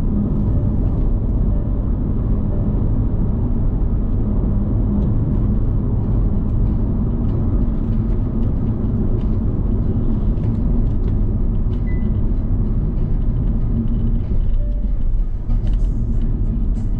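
Steady low road and engine rumble of a vehicle driving along.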